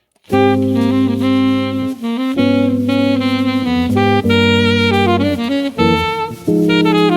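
Bebop jazz trio playing, a saxophone carrying held melody notes over sustained low notes, starting abruptly about a quarter second in.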